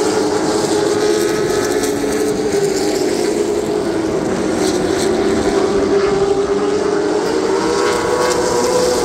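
Late Model stock car V8 engines running at speed in a steady, loud drone. Its pitch drifts slightly and rises a little near the end.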